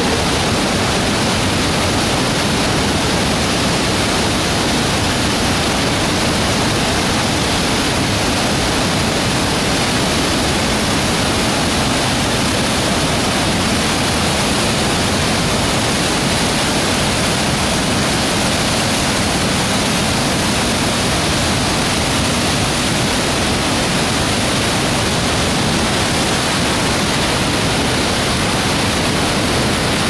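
Loud, steady rush of a whitewater mountain river pouring over rapids and a waterfall, unbroken throughout.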